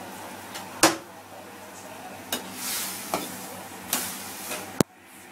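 Chicken wings and water handled in a wok: a few short, sharp knocks and a soft swish of water over a steady low hum, with a very sharp click near the end.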